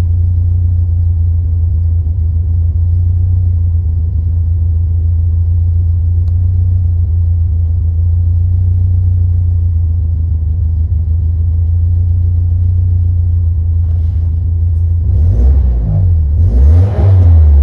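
1989 Alfa Romeo Spider's twin-cam four-cylinder engine idling roughly with a steady low rumble. Near the end it is revved up and let fall back a couple of times.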